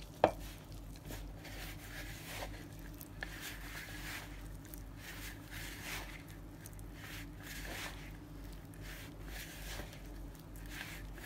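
Maida flour, rava and oil being rubbed and squeezed together by hand into a crumbly dough in a plastic bowl: soft, faint squishing strokes about once a second. One sharp knock comes just after it starts.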